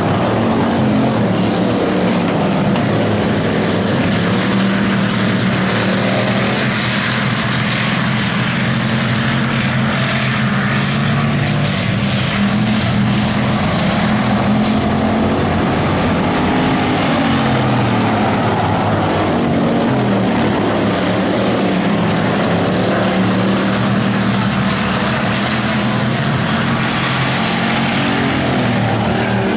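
Several bomber-class stock car engines racing around the track, overlapping one another, their pitch rising and falling over and over as the cars speed up and ease off through the laps.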